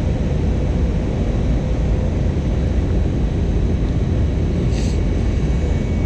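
Steady cabin noise of an airliner in flight: the engines and rushing airflow heard from inside the cabin, with a brief higher hiss about five seconds in.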